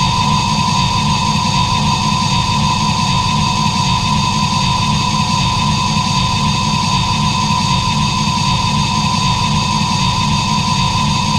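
A steady, unchanging drone-like sound effect: a constant high whine over a dense, fluttering low rumble, with no rises, falls or breaks.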